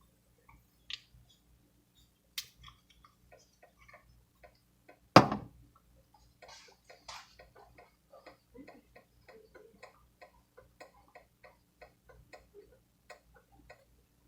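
A utensil stirring in a saucepan of creamer, with light, fairly regular clinks against the pot about two to three times a second. One much louder clack comes about five seconds in.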